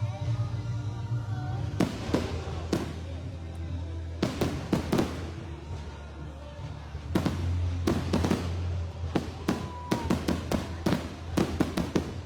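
Fireworks display: aerial shells bursting in quick clusters of sharp bangs and crackles, coming in several volleys.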